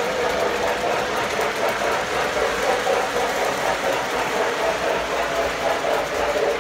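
Model steam train running past on its track: a steady mechanical hum and rattle from the locomotive's motor and the cars rolling over the rails.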